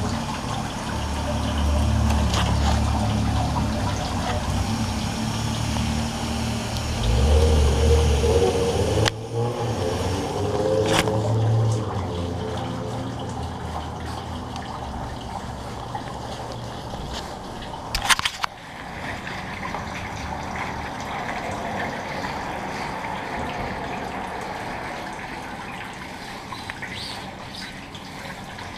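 Cloth rubbing and bumping over a camera's microphone, with heavy low rumble, for the first nine seconds or so. This gives way to a steadier hiss with a few sharp clicks, the loudest about two-thirds of the way through.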